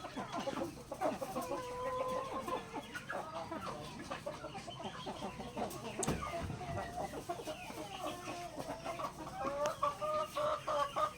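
Backyard chickens clucking, a steady run of short, overlapping calls.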